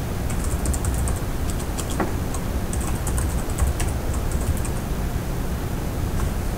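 Computer keyboard being typed on, a quick run of key clicks that stops about three-quarters of the way through, over a steady background hiss.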